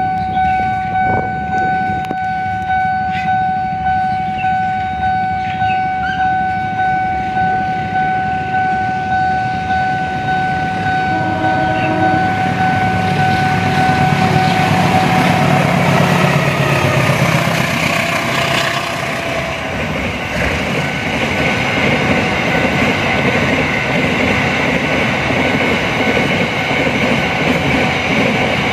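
Level-crossing warning bell ringing in a steady repeating pattern about once a second as a diesel-hauled freight train approaches. About halfway through the locomotive passes and the bell is buried under the rumble and rail clatter of the wagons rolling by.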